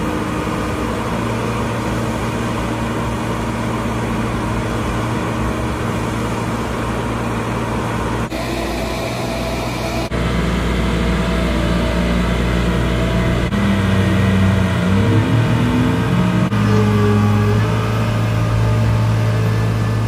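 Diesel engine of a 500-ton mobile boat hoist running steadily as it carries a shrimp boat ashore in its slings, revving up with a rising pitch about fourteen seconds in.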